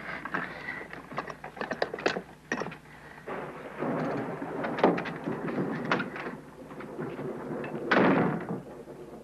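A series of knocks and thuds, with one louder thump about eight seconds in.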